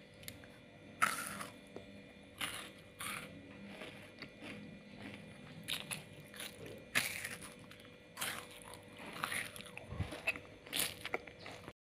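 Someone biting and chewing a Delfi BarBar chocolate-coated crunchy wafer bar, with crisp crunches coming at irregular intervals.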